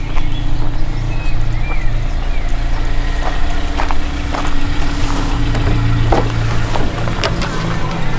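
A motor vehicle's engine running steadily, with a few scattered knocks and clicks.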